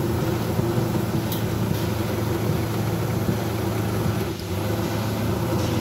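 Electric countertop blender running steadily, blending a smoothie, with a short dip in its sound about four seconds in.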